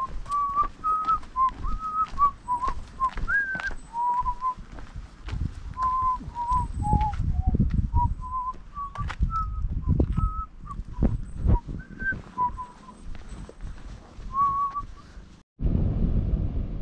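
A person whistling a tune in short notes that step up and down, with regular footfalls underneath. Near the end the sound cuts off suddenly and gives way to wind rumbling on the microphone.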